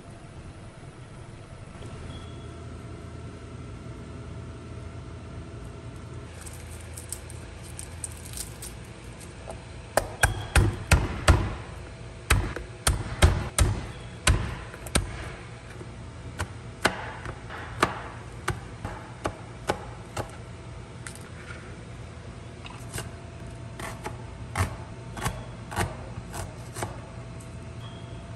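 Kitchen knife chopping garlic and shallot on a plastic cutting board. A quick run of sharp knocks starts about ten seconds in, followed by slower, spaced strokes, over a low steady hum.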